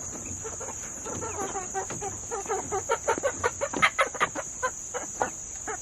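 Backyard chickens clucking: a string of short clucks that comes thicker and louder from about three seconds in.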